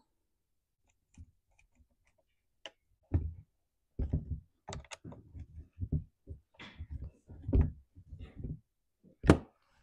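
Nut driver tightening the 8 mm carburettor nuts on a chainsaw: irregular clicks, taps and short scrapes of the tool against the nuts and the saw's housing, starting about three seconds in, with one sharp knock near the end.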